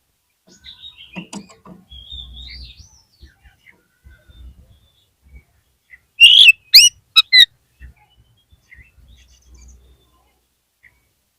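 Oriental magpie-robin (kacer) singing: soft scattered notes and glides at first, then a loud burst of four sharp whistled calls about six seconds in.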